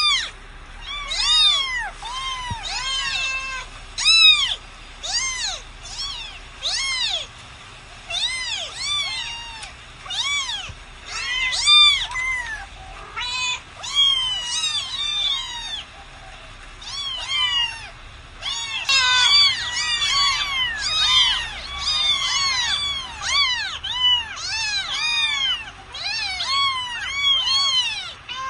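Domestic cats meowing over and over, many short arched high-pitched meows, often overlapping as if several cats or kittens are calling at once.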